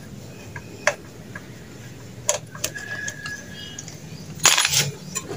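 Screwdriver working the screws of a Kawasaki TD40 brush cutter's carburetor to take it off: scattered light metallic clicks, with a short louder rasp about four and a half seconds in.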